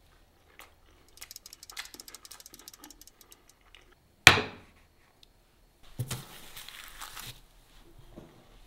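Light crackles and clicks, then a single sharp knock about four seconds in as a wooden sign stand is set down on a wooden table, followed by a brief rustle of handling.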